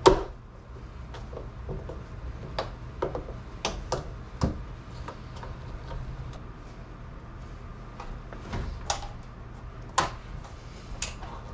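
Hands working a rubber windshield seal onto a metal windshield frame, heard as scattered knocks and clicks. There is a sharp knock at the very start and a few more through the middle and near the end, over a steady low hum.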